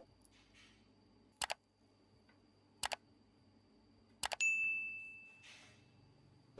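Three short double clicks about a second and a half apart, then a metallic ding that rings on for more than a second as it fades.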